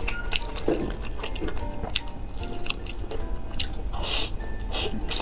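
Close-miked eating sounds of curly instant noodles being slurped and chewed, with wet mouth clicks; the loudest slurp comes about four seconds in, followed by a couple of shorter ones. Faint background music runs underneath.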